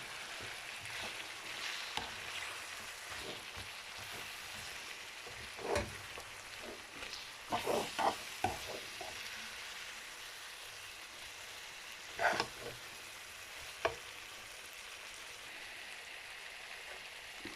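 Vegetables and chicken frying in a wok after soy sauce has been added, a steady sizzle broken by a few sharp scrapes and clatters of a utensil stirring against the pan.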